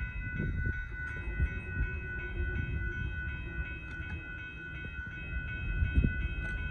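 Amtrak passenger train rolling past a road crossing, a steady low rumble of wheels on the rails with a few knocks, while the crossing bell rings with fast, even, repeated dings.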